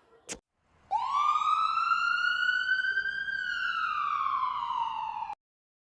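Ambulance siren sound effect: one long wail that rises in pitch, holds, then slowly falls before cutting off abruptly, a long-duration sound.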